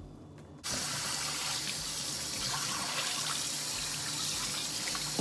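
Kitchen tap turned on suddenly under a second in, with water running steadily into a stainless-steel sink and splashing over hands.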